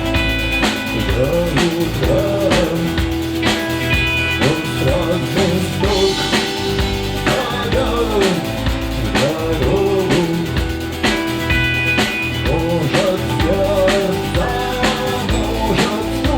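Live rock band playing a cover song: drum kit keeping a steady beat under electric guitar and bass, with a melodic line sliding up and down, loud and continuous.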